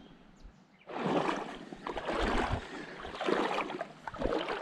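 River water sloshing and splashing around legs wading through it, swelling about once a second with each step; it starts suddenly about a second in.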